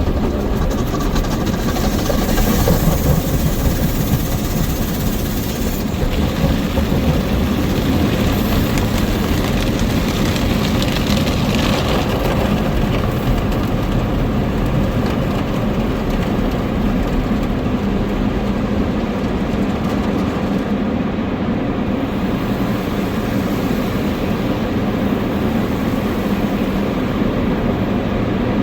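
Automatic tunnel car wash heard from inside the car: a steady rumble of the wash machinery, with two spells of hissing spray in the first half.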